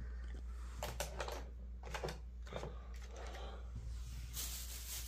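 Faint handling noise: several soft clicks and rustles of hands working small plastic parts, then a softer rustling hiss from about four seconds in as the phone is moved, over a low steady hum.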